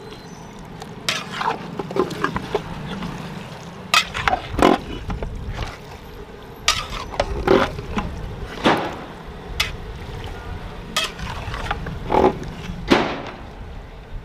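Long metal ladle stirring chicken pieces in thick masala in a large aluminium cooking pot, with irregular scrapes and knocks against the pot's side, over a steady low rumble.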